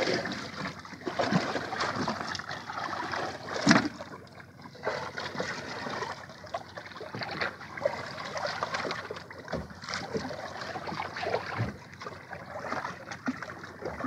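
Sea water lapping and splashing against a small outrigger boat's hull, with scattered knocks and handling noise on the boat; one sharper knock about four seconds in.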